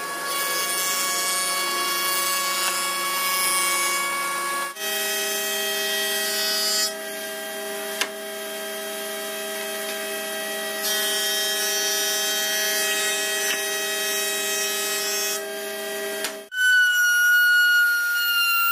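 Industrial wood planer running with a steady whine while pallet boards pass through its cutterheads, the cutting adding a high hiss that comes and goes. The sound changes abruptly about five seconds in, and again near the end, where a table saw's steady, higher whine takes over.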